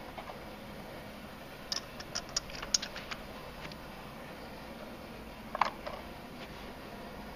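1 oz American Silver Eagle coins clinking against each other as they are handled and stacked on a digital scale's plastic platter: a quick run of about eight light clinks, then a sharper cluster of clinks a few seconds later as more coins are set down on the stack.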